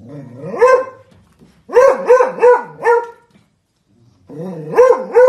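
Beagle barking in short calls that each rise in pitch: one bark, then a quick run of four, then two more near the end.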